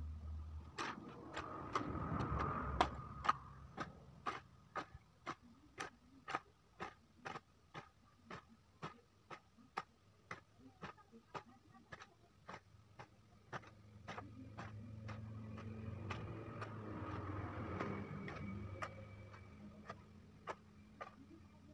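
Steady, evenly spaced ticking or clicking, about two ticks a second. A low rumble swells around two seconds in and again from about fourteen to nineteen seconds.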